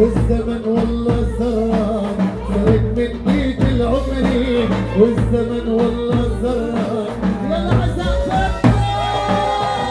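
Live Arabic dabke music from a band: a large double-headed tabl drum beats steadily under a wavering melody line, with a heavy bass.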